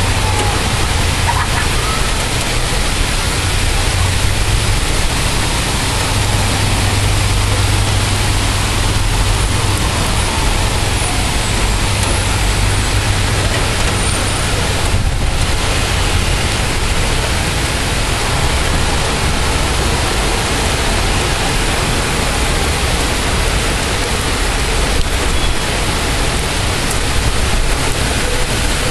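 Heavy rain pouring down steadily in a thunderstorm. A low steady hum runs beneath it through the first half.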